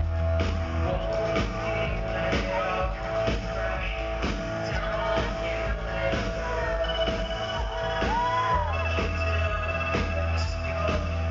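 Live electronic rock band performing, recorded from the audience. A steady drum beat runs over a held synth note and electric guitar. A heavy bass drops out about a second in and comes back in past the middle.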